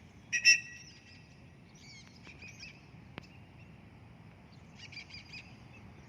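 Birds calling: one loud, sharp call about half a second in, then softer warbling chirps and a quick cluster of calls around five seconds in.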